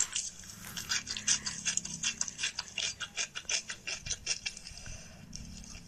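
Mouth sounds of eating (chewing and smacking) from a mukbang video played through a phone speaker: a rapid run of short, wet clicks, about three to four a second.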